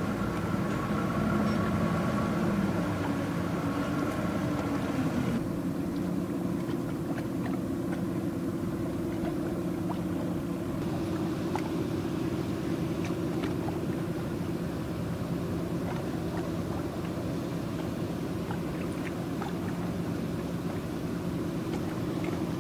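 Boat engine running with a steady low drone. The sound changes about five seconds in, with the higher part falling away.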